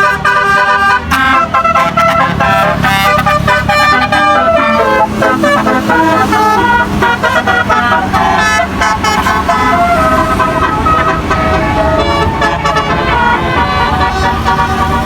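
Tour bus telolet horn playing a tune: several horn tones sound together and step rapidly from note to note without a break. A steady low engine hum runs underneath from about a third of the way in.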